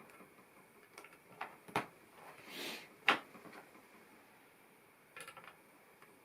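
Plastic LEGO bricks being handled and clicked together: a few light clicks and taps about a second in, a soft rustle, a sharper snap about three seconds in, then a quick run of small clicks near the end.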